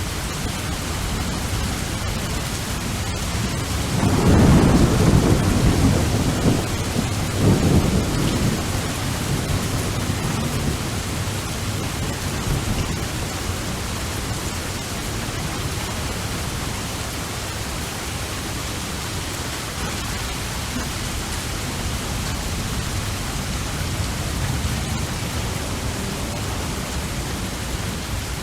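Steady heavy rain with a roll of thunder rumbling about 4 seconds in, swelling twice and fading by about 9 seconds; the rain hiss goes on after it.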